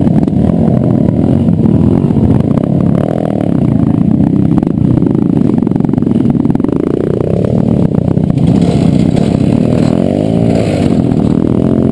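Dirt bike engine running close to the microphone at low trail speed, its pitch rising and falling as the throttle opens and closes, with other trail bikes nearby. Short knocks and rattles from the bike working over rough ground.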